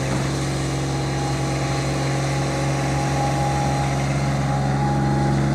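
Putting-green mower's engine running steadily, cutting the grass.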